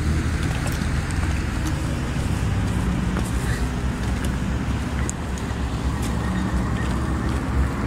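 A steady low rumble runs throughout, with a few faint scattered clicks of footsteps on loose rock and gravel.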